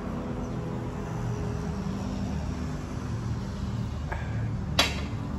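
Steady low background hum, with a sharp clink of a drinking glass near the end.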